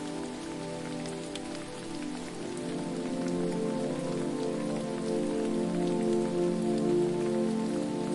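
Steady patter and hiss of falling water, like rain, with soft sustained low tones underneath that grow louder about three seconds in.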